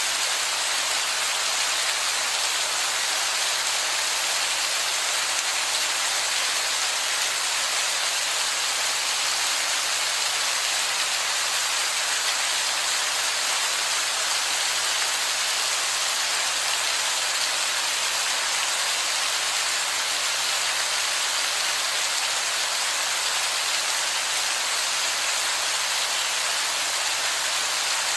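Heavy falling water splashing onto wet rock: a steady, even hiss with no breaks.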